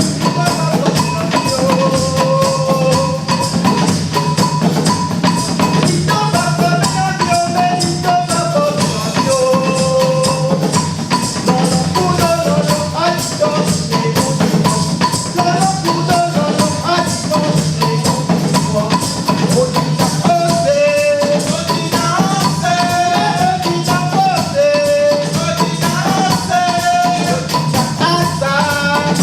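Music: a song with a melody line moving over a steady percussion backing with tambourine-like shaking.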